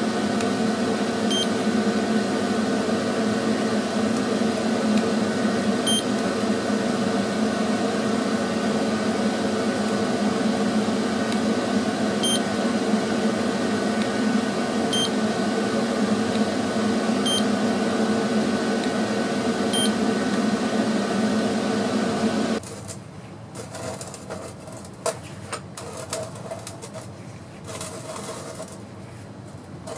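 Steady electrical hum with fan noise from a shop machine, which cuts off suddenly about three-quarters of the way through, leaving faint clicks and handling. Short high electronic beeps sound six times at intervals of a few seconds while the hum runs.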